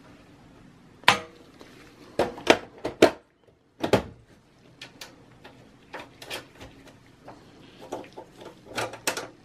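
Sheet-metal side cover of a Dell OptiPlex small form factor case being set on the chassis and slid shut: a sharp metal clank about a second in, a run of clanks and clicks as it seats, then lighter ticks as the rear thumb screw is handled.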